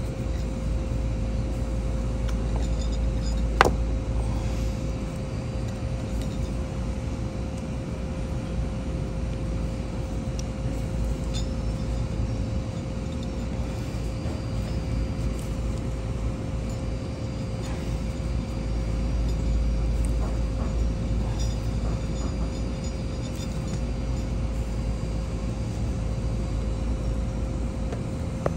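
A steady machine hum with a low rumble, and one sharp click a few seconds in.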